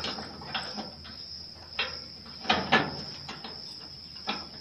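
An iron chain clinking and rattling against a metal door frame in a few separate clanks, loudest about two and a half seconds in, as it is threaded through to take a padlock. Crickets chirp steadily behind it.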